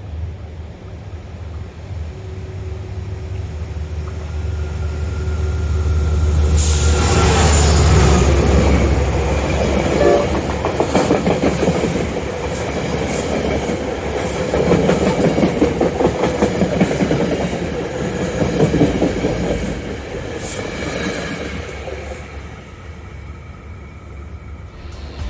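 A train approaching and passing close by: a low rumble builds while a horn sounds for several seconds, then a loud rush of wheels and rapid clickety-clack over the rail joints that fades away near the end.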